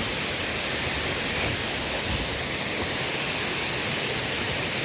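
Waterfall pouring into a rock pool: a steady, even rush of water.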